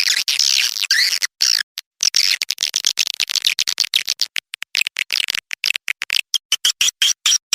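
Swiftlet call playback track: rapid, high twittering chirps, chopped by many abrupt cut-offs, with the chirps getting shorter and faster after the middle. This is the lure call that swiftlet farmers play to draw swiftlets into a nesting house.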